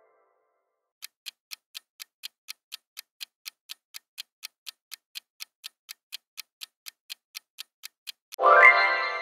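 Quiz countdown timer sound effect ticking at about four ticks a second. The ticking starts about a second in. Near the end a loud chime sets in sharply and rings out, marking that the time is up.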